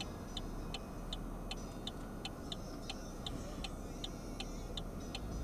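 A car's turn-signal indicator clicking at an even pace, about three clicks a second, while the car idles at a light, signalling a left turn. Under the clicks is a low, steady engine and cabin hum.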